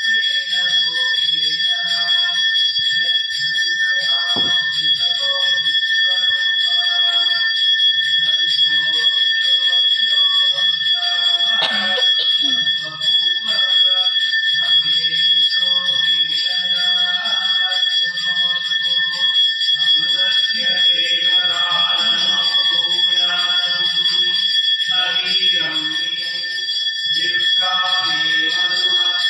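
Temple puja bell rung without a break, a steady high ringing, over men's voices chanting during the abhishekam of the idol.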